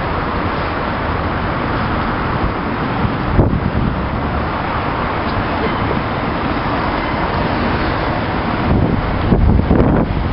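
Two coupled Class 47 diesel locomotives, their Sulzer twelve-cylinder engines running steadily as they approach slowly. There is a brief thump about three and a half seconds in, and wind buffets the microphone near the end.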